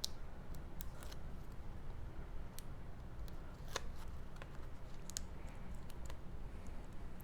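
Cardstock pieces being handled and pressed together by hand: scattered light clicks and taps at irregular moments over a steady low hum.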